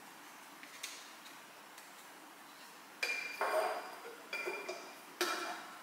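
Small hard gift items clinking and knocking as they are handled and unpacked: several clinks with short ringing, starting about three seconds in after a quiet stretch.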